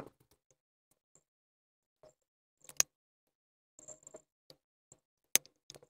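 A handful of sharp clicks and light knocks from hand work with a silicone caulking gun on a plastic headlight housing, with faint rustling between. The loudest clicks come just before three seconds in and again about five and a half seconds in.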